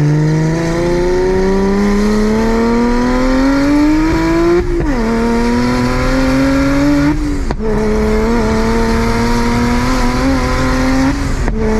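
A BMW 335i's turbocharged straight-six, rebuilt with a big single Precision 6266 turbo, pulling hard under full throttle. The pitch rises steadily through each gear, with sudden drops at gear changes about 5 and 7.5 seconds in.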